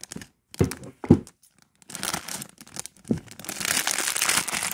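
Clear plastic Lego parts bags crinkling as they are handled and rummaged through, with a few thumps, the loudest about a second in, and steady crackling from about two seconds in.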